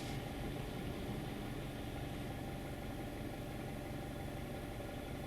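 Mazda's 2.0 petrol engine running steadily, heard from inside the closed cabin as an even low hum.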